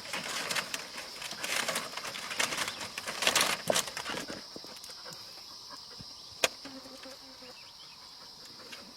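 Insects droning steadily on one high note in forest, with rustling and crackling for the first four seconds or so, loudest about three and a half seconds in, then a single sharp click a few seconds later.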